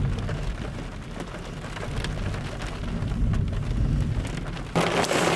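Thunder rumbling while rain hits the car's roof and windshield, heard from inside the car. About five seconds in, the rain suddenly turns heavy.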